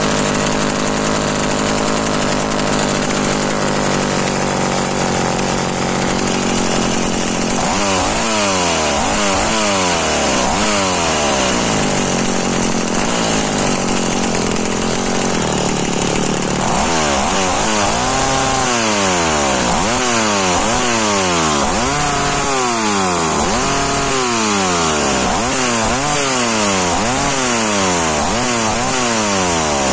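McCulloch Pro Mac 850 two-stroke chainsaw engine running, idling steadily at first, then revved again and again from about eight seconds in. The pitch climbs and drops with each blip of the throttle, about once a second in the second half.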